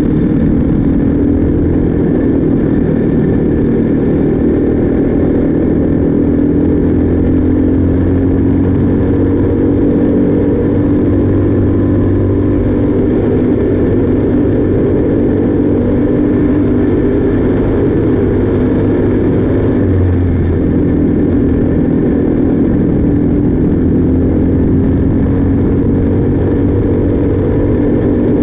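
Briggs & Stratton LO206 single-cylinder four-stroke kart engine running hard, heard from on board the kart; its pitch climbs slowly as it accelerates and drops back as it lifts, with a clear drop about twenty seconds in.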